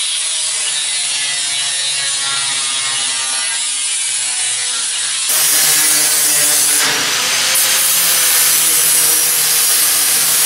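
A handheld power tool runs with a steady whine. About five seconds in it gives way to a louder, harsher hiss as a handheld power tool cuts through sheet steel.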